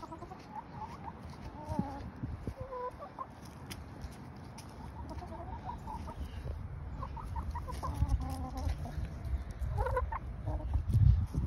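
Several backyard hens clucking in short, scattered calls. A low rumble runs underneath and grows louder near the end.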